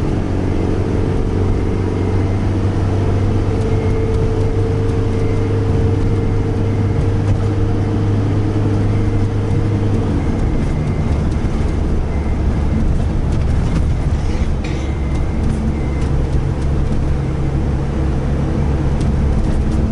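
Motorhome engine and road noise heard from inside the cab while driving slowly through a tunnel: a steady low drone whose engine note changes about halfway through.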